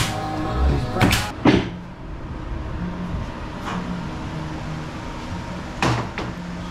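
Several sharp knocks, three in the first second and a half and another about six seconds in, over a steady low hum. Background music ends about a second in.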